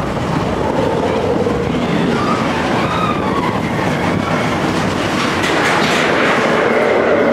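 Expedition Everest roller coaster train running along its steel track at speed, a loud steady noise of wheels and rushing air that grows busier about five seconds in.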